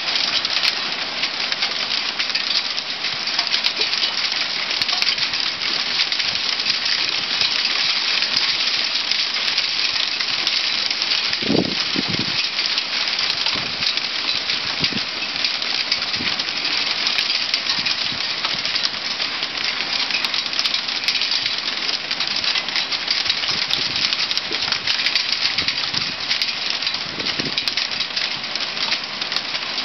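Hail falling steadily: a dense, continuous patter of small ice pellets striking the concrete balcony floor, railing and street.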